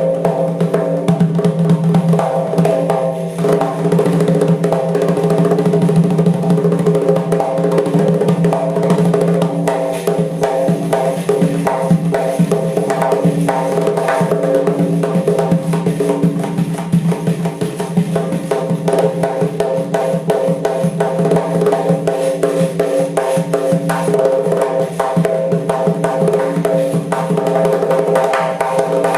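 Doira, the Central Asian frame drum with jingle rings, played in a fast, dense rhythm of rapid strokes and rolls over a steady low tone.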